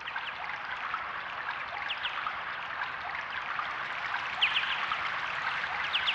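Steady rush of running water, like a stream, with short high falling chirps scattered over it.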